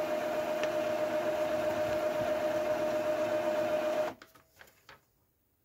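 Epson EcoTank ET-2800 inkjet printer running its initial ink charge, priming the print heads: a steady mechanical hum with a high steady tone. It cuts off abruptly about four seconds in, leaving a few faint clicks.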